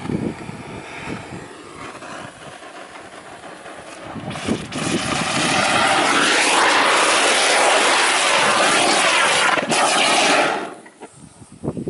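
Diwali anar (fountain firework) spraying sparks from the water surface: a loud, steady rushing hiss that starts about four seconds in, builds quickly, and cuts off sharply about ten and a half seconds in.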